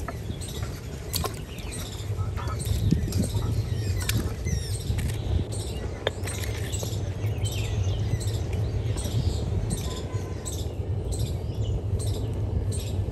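Small birds chirping repeatedly over a steady low rumble, with a few sharp clicks or knocks.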